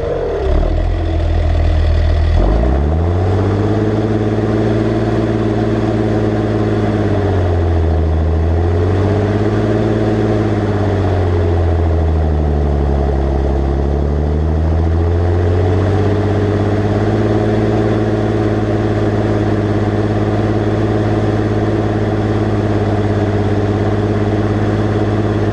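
Massey Ferguson 5465 tractor's turbo diesel engine running under cultivator load. Its pitch dips and comes back up several times, then holds steady for the second half.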